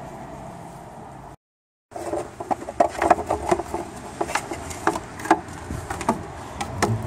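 Hard black plastic transmission cover being worked loose and lifted off the aluminium housing by hand. After a brief gap in the sound, it gives a quick, irregular string of clicks and knocks as it rattles and scrapes against the casing.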